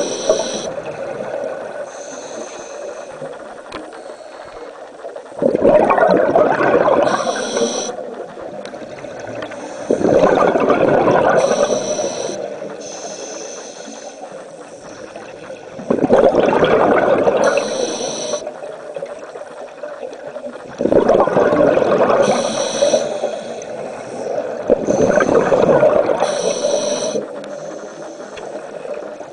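Scuba diver breathing through a regulator underwater: a short hiss at each inhale, then a gush of exhaled bubbles lasting two or three seconds. About five breaths, one every five seconds or so.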